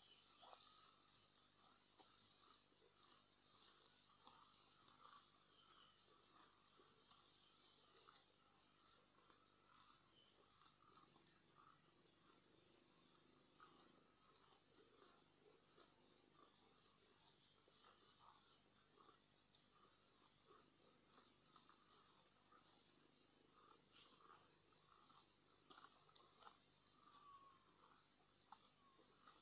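Faint, steady high-pitched chorus of insects with a fine pulsing texture; twice a thin higher whistle joins for a second or two, about halfway through and near the end. Faint scattered soft rustles and ticks lie beneath it.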